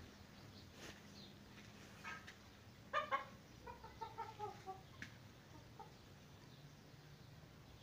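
Domestic fowl clucking: two loud clucks about three seconds in, then a quick run of softer, falling clucks.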